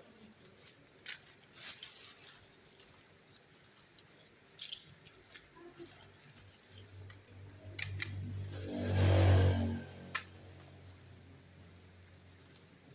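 Scattered small clicks and rustles of packages and objects being handled. About eight seconds in, a louder low hum with a steady pitch swells and then fades over about two seconds.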